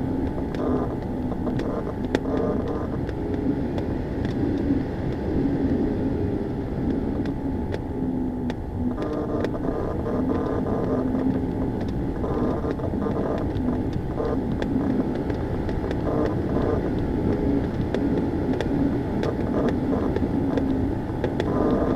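Steady rush of airflow heard from inside a Ka-8 glider in flight, with a low drone that wavers in pitch.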